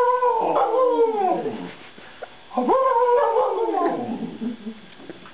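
Bernese Mountain Dog puppy howling along with a man howling: two long howls, each sliding down in pitch, with a short pause between them.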